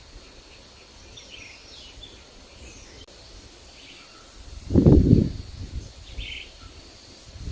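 Forest birds chirping in short scattered calls; a little under five seconds in, a gust of wind rumbles on the microphone for about half a second, louder than the birds.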